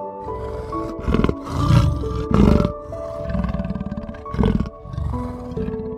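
Big cat roars and growls, several loud deep ones in a row, over gentle background music.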